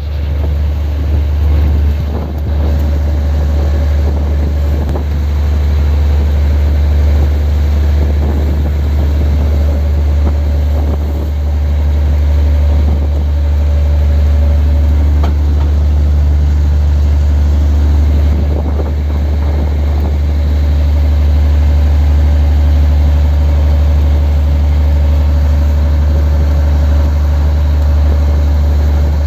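Fishing boat's engine running steadily at sea, a deep drone with a fainter, higher steady hum.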